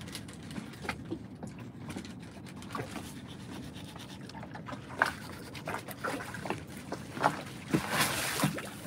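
Fillet knife scraping and cutting against a wooden cutting board as the skin is worked off a small pompano fillet: faint scattered scrapes and clicks, with a louder rasp near the end, over low steady background noise.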